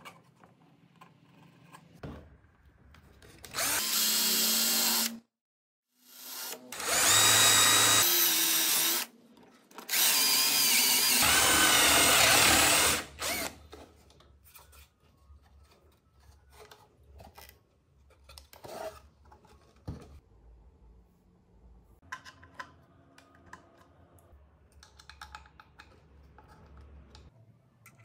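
Small electric motor running at speed in three runs of a few seconds each, then quieter clicks and knocks of parts being handled.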